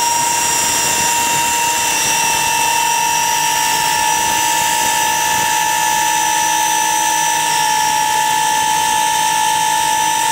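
Garuda 1080 toy quadcopter with two of its four propellers removed, its motors running at full throttle as a steady high-pitched whine. It stays on the floor, unable to lift off on only two propellers.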